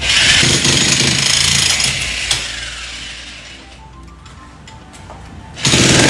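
A corded handheld power tool working into a concrete wall, loud for about two seconds and then dying away, with background music under it. A second loud burst of the same kind of noise starts near the end.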